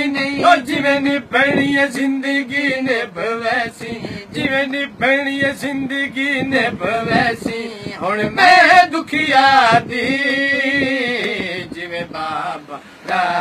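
Two men singing a Saraiki devotional lament without instruments, in a chanting style with long held notes and a wavering, ornamented melody.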